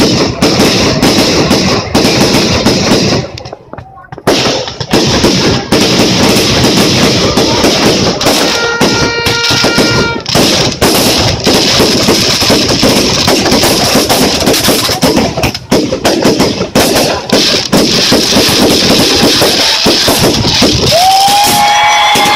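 Fireworks display: a dense, continuous barrage of bangs and crackling that drops away briefly about four seconds in. Around nine seconds in a pitched tone with overtones sounds over it, and a gliding tone comes in near the end.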